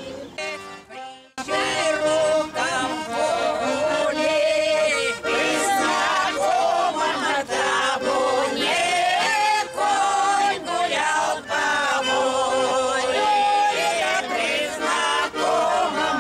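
A group of elderly women and men singing a folk song in unison to bayan (button accordion) accompaniment. The sound cuts out briefly in the first second and a half, then the singing and accordion carry on loudly.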